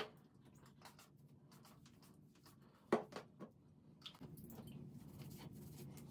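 Quiet handling noises: small clicks and taps of a hair-product bottle, the sharpest about three seconds in. From about four seconds in there is a soft, steady rubbing as hands work product through damp hair.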